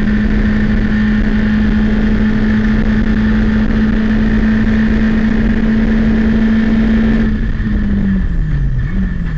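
Citroën Saxo race car's four-cylinder engine held at high revs at full throttle in fifth gear, heard from inside the cabin. About seven seconds in the driver lifts off to brake: the engine note falls in steps, rising briefly once as it is shifted down.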